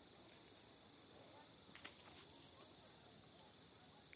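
Near silence: a faint steady high-pitched drone, with a couple of sharp clicks a little under two seconds in.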